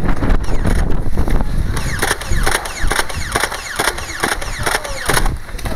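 Nerf Stampede motorized blaster firing full-auto from about two seconds in, about three shots a second, each shot with a falling whine. The blaster has an upgraded spring but no voltage mod, which gives its firing its strained, sick sound.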